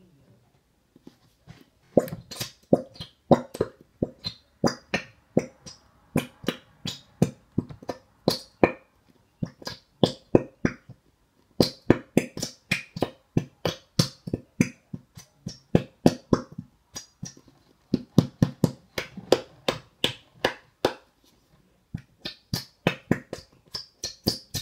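Plastic bottle of pink glue held upside down and shaken hard to get the last of the glue out, making a quick run of sharp clicks and sputters, about four a second, with two short pauses.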